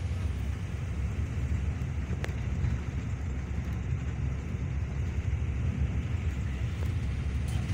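Yutong bus driving along the road, heard from inside the cabin: a steady low rumble of engine and road noise. A light click about two seconds in.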